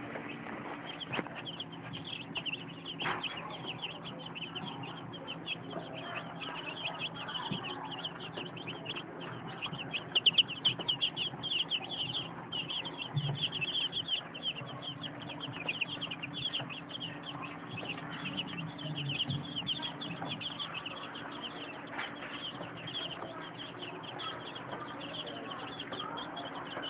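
Many chicks peeping at once in a continuous, overlapping chorus of short high chirps, busiest about ten to fifteen seconds in, over a faint steady low hum.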